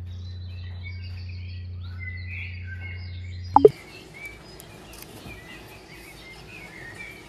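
Small birds chirping over a steady low hum. About three and a half seconds in, two sharp knocks sound and the hum stops, while the chirping goes on.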